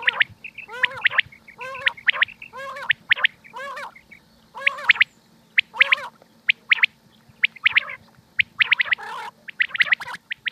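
Common quail calling over and over: short, sharp high notes in quick clusters alternate with lower, throaty arched calls, with a faint steady hum underneath.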